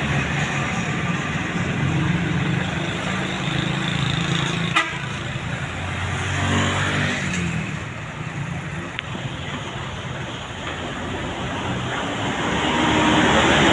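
Buses passing on a road: diesel engines running, one dropping in pitch as it goes by about six seconds in, with tyre and road noise swelling near the end.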